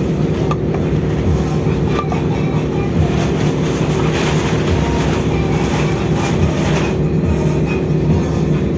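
Steady low mechanical rumble and hum, with a louder rush of hiss from about three to seven seconds in.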